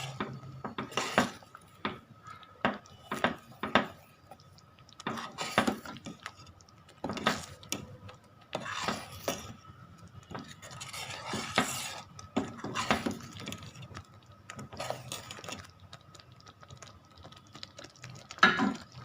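Metal utensil clinking and scraping against a metal cooking pot in irregular strokes, as when stirring or serving a gravy.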